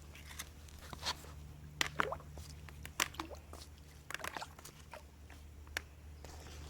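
Faint scattered clicks and drips over a steady low hum as the pool robot cleaner is lifted out of the water.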